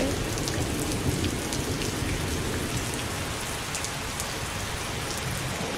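Rain sound effect: a steady hiss of falling rain.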